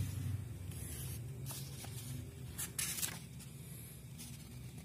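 Paper and plastic packaging being handled: a few short rustles as the instruction manual is folded and set down over a clear plastic bag of cables, over a low steady hum.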